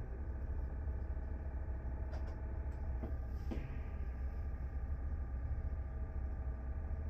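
Steady low hum of room background noise, with a few soft clicks or rustles about two to three and a half seconds in.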